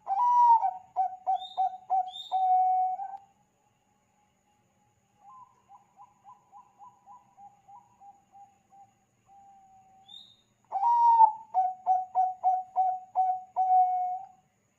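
Zebra dove (Bangkok perkutut) cooing: two loud song phrases, each opening with a slurred note, then a quick run of short coos and a held final coo. A fainter phrase of the same kind comes between them.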